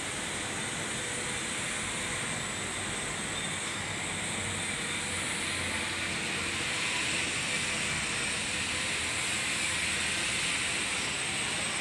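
Steady background machinery noise, a continuous hiss with a faint hum and no distinct knocks or clicks.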